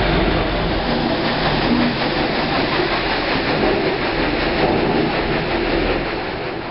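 Working watermill machinery, with wooden gearing and millstones running, making a loud, steady rattling rumble that eases off near the end.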